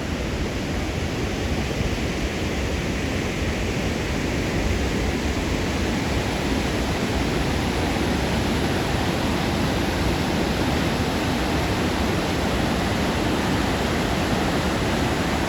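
Waterfall on the Aux Sables River, a steady, even rush of falling water.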